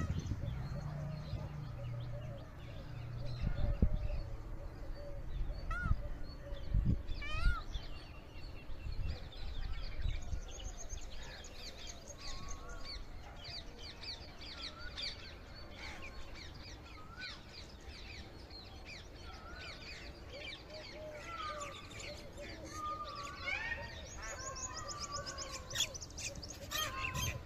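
Many birds chirping and calling at once, short high calls overlapping, getting busier after the first third. A low hum sits under the first few seconds, and a couple of brief thumps come early on.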